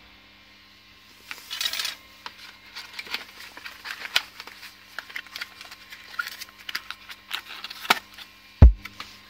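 Handling noise from a scooter variator and its packaging box: scattered clicks, light metal clinks and rubbing as the parts are turned over and fitted back into the box, with a brief rustle about a second and a half in and a dull thump near the end.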